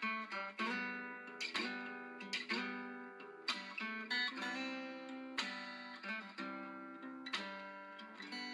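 Background music: strummed acoustic guitar, chords struck one after another and left to ring and fade.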